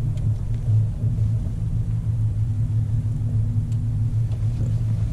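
A boat's motor running with a steady low hum and rumble.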